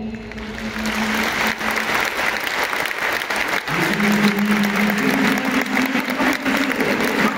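Large stadium crowd applauding and cheering at the end of the national anthem. A steady low held tone joins the applause about halfway through.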